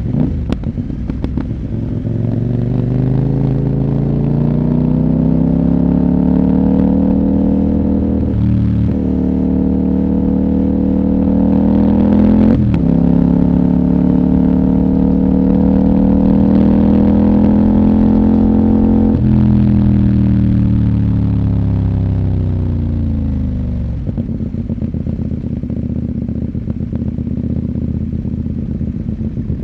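CFMOTO 800NK's parallel-twin engine, decat with the stock muffler, pulling through the gears: the pitch climbs, breaks sharply at quick upshifts about nine and thirteen seconds in, then falls away in two steps as the bike slows.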